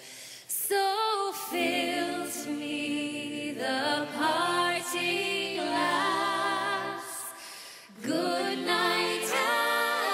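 A woman singing a slow Irish ballad in long held notes with vibrato. Her voice starts about half a second in, and she pauses briefly before a new phrase about eight seconds in.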